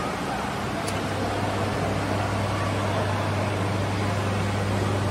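Steady low hum over an even hiss: the room tone of a large hall, with no clear single event.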